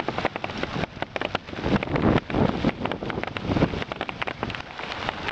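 Hail and heavy rain pelting hard surfaces: a dense, irregular patter of sharp ticks and clicks over a steady hiss, with a few louder low rushes about two and three and a half seconds in.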